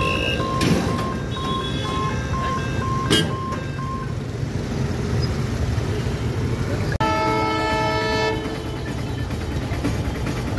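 Road traffic at a railway level crossing. A warning beeper gives short, regular beeps for about the first four seconds as the boom barrier lifts, with two sharp knocks. About seven seconds in, a vehicle horn sounds for just over a second.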